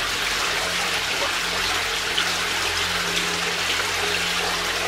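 Shallow stream water running and trickling along the floor of a stone-lined tunnel, a steady rushing hiss.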